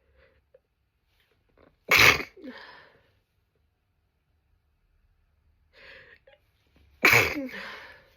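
A woman sneezing twice, about five seconds apart. Each sneeze is sudden and loud, with a short voiced tail that drops in pitch, and the second comes after an audible breath in.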